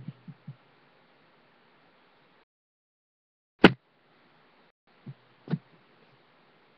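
A few sharp knocks or clicks over faint hiss: one at the start with two small taps after it, a loud one a little under four seconds in, and two lighter ones near the end.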